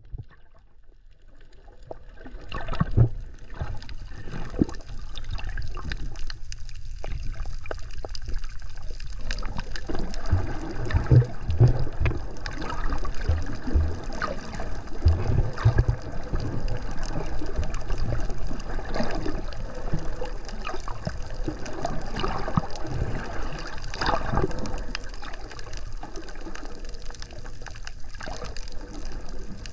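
Underwater sound on a scuba dive: gurgling water and bubbles with irregular low thumps that swell several times, likely the diver's exhaled bubbles.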